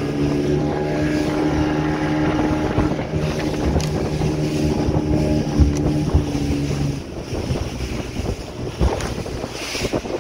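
Small fishing boat's motor running under way, a steady drone, with wind buffeting the microphone and water rushing past the hull. The drone drops out about seven seconds in, leaving wind and water noise, and a few thumps mark the hull hitting the waves.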